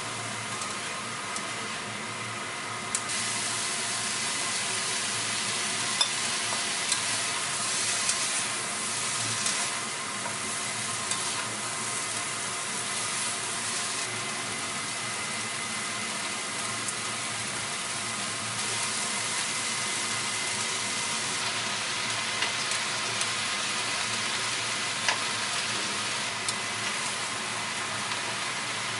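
Vegetables stir-frying in a nonstick frying pan: a steady sizzle that grows a little louder about three seconds in, with scattered clicks and scrapes of a spatula against the pan as the food is stirred.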